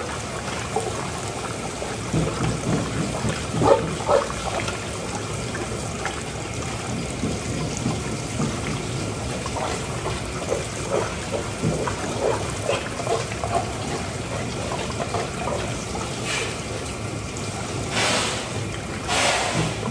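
Water running and splashing, with scattered light knocks and clatter throughout and a few louder gushes of spray near the end.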